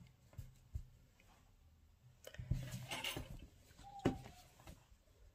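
Faint rustling and a few light knocks of a cotton towel and its lace edging being handled and folded on a table.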